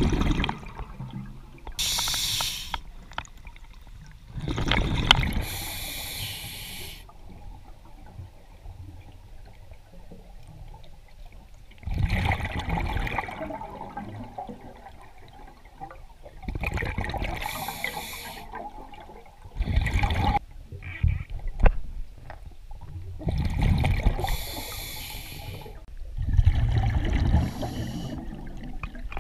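Scuba diver breathing through a regulator underwater: a hiss on each inhalation and a gurgle of bubbles on each exhalation, the breaths a few seconds apart.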